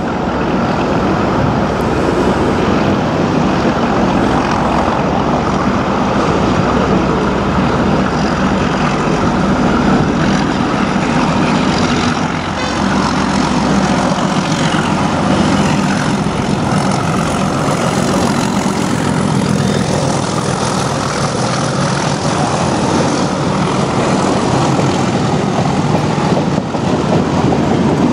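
Class 31 diesel locomotives' English Electric engines thrashing as a freight train climbs out of the tunnel and runs through the station, a loud, steady engine drone that dips briefly about halfway through.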